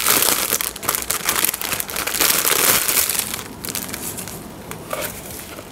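Plastic crinkling and rustling as a diamond painting kit's canvas and packaging are handled, loudest for the first three seconds, then fainter scattered rustles and clicks.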